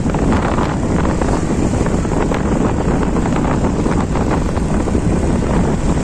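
Steady wind rush buffeting the microphone of a moving motorcycle, with road and engine noise underneath.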